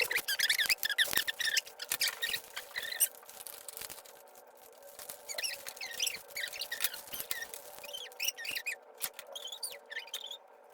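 Hard plastic toy parts of spinning tops and a launcher being handled: many short, wavering high-pitched squeaks of plastic rubbing on plastic, mixed with small clicks, busiest in the first three seconds and again later on.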